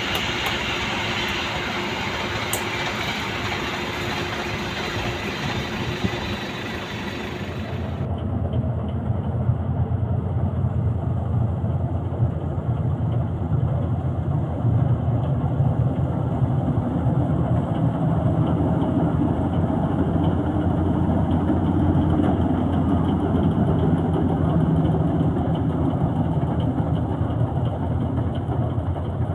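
Combine harvester's heavy engine and machinery running steadily, a continuous low drone. About eight seconds in, the high hiss drops away suddenly and the low engine drone becomes stronger.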